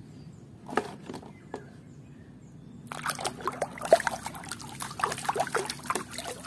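Water sloshing and splashing as a hand stirs through a plastic basin of muddy water, starting about three seconds in, after two faint knocks.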